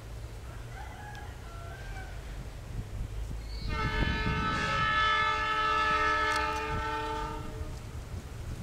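Diesel locomotive's horn sounding one long chord of several notes together for about four seconds from an approaching passenger train, over a steady low rumble of wind.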